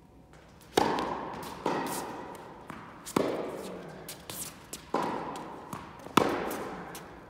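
Tennis rally: a ball struck back and forth by rackets, each hit a sharp pop that echoes through the indoor hall. Three loud hits come about three seconds apart, with fainter pops between them and small taps of footwork.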